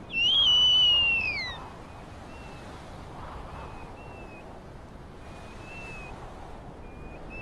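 Female snowy owl giving a begging call: one loud, high, drawn-out call lasting about a second and a half that drops in pitch at the end. Faint short high calls repeat after it.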